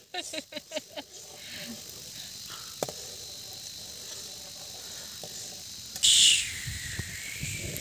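A metal spatula knocking and scraping in a steel pan of boiling milk, then a steady faint hiss from the pot boiling on a wood fire. About six seconds in, a sudden loud high hiss cuts in, followed by a falling, wavering whistle-like tone.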